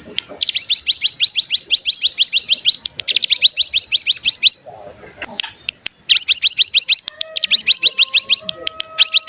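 Ciblek gunung (a prinia) singing its 'bren' trill: fast upward-sweeping chirps, about eight a second, in bursts of one to two seconds with short breaks and a longer pause about halfway through.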